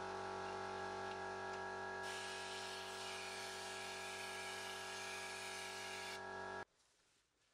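Air-fed underbody wax gun hissing over a steady hum, the hiss stronger for a few seconds in the middle; everything cuts off abruptly near the end.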